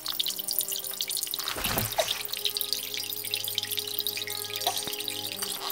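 Water running from the spigot of a collapsible plastic water jug into a glass pot, splashing onto the water already in it. There is a dull low bump about a second and a half in, and soft music underneath.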